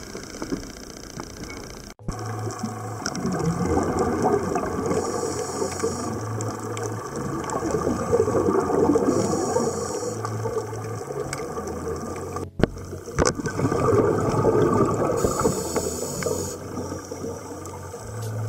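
A boat engine idling at the surface, then a cut to underwater sound of scuba breathing: hissing regulator inhalations and rushing bursts of exhaled bubbles, recurring every few seconds.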